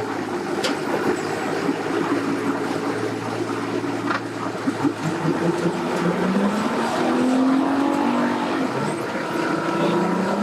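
Bass boat outboard motor revving hard under throttle, its pitch climbing in long rises through the second half, over a steady low engine hum.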